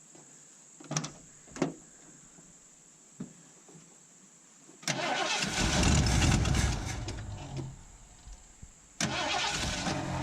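1978 Ford F100's 302 V8 being cranked over twice without starting, after two sharp clicks: each try dies away, which the owner puts down to gas gone bad after six months of sitting.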